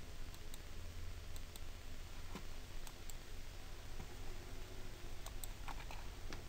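Faint, irregular clicks, a dozen or so, from someone working a computer, over a low steady hum.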